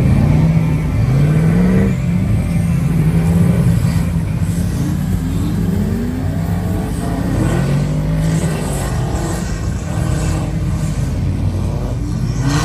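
Engines of off-road vehicles mud drifting, revving up and down again and again as they slide around a muddy field, over a steady low drone.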